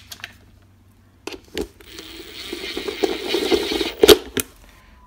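Cordless drill with a hex bit running a set screw down into the metal hub of a surface cleaner's rotary head, the motor running steadily for about two seconds, followed by two sharp clicks near the end.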